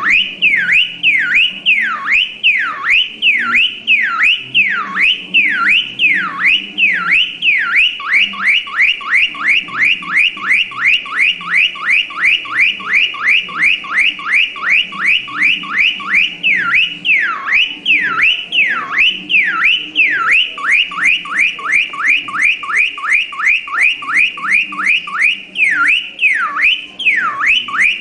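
Car alarm siren cycling through its tones: runs of slow falling whoops, about one a second, alternating with runs of fast falling whoops, about three a second.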